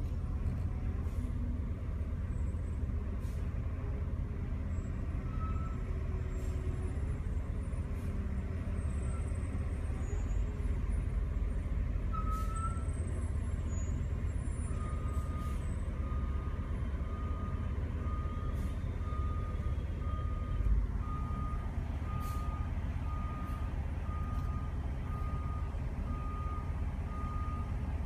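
Heavy diesel truck engine running with a steady low rumble, joined about halfway through by a truck's reversing alarm beeping at an even pace, about one beep a second. A brief low thump comes a few seconds after the beeping starts.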